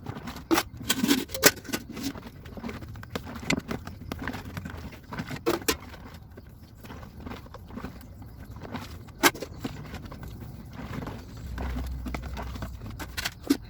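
Cups and dishes clinking and knocking against each other as they are washed by hand in a basin of water, in scattered single strikes.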